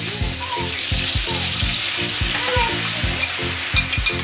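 Pork belly rolls sizzling steadily in oil in a frying pan as the seasoning sauce goes in, with a few light clinks of a spoon on a ceramic bowl near the end. Background music with a steady beat plays underneath.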